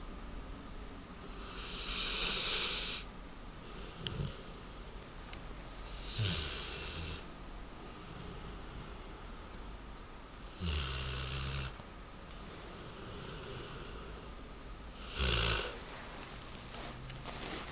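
American Bulldog snoring in its sleep: about five loud snoring breaths a few seconds apart, some with a low rumble and some mostly hissing.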